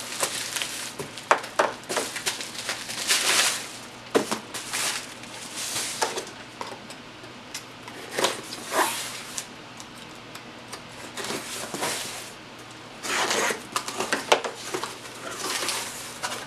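A shipping box being unpacked by hand: irregular rustling, crinkling and clicking of packaging and small plastic containers being handled.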